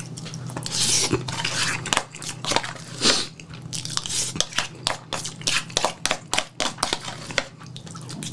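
A metal spoon scraping and clicking in an aluminium foil tray as fried rice is scooped up, with chewing between scoops.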